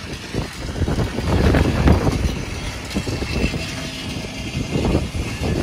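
Tow truck running, with irregular low rumbling and repeated clunks and rattles of metal.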